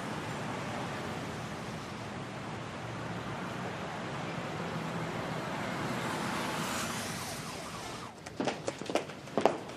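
Steady city street traffic noise, a wash of passing cars. About eight seconds in it stops and gives way to a run of sharp clicks and knocks.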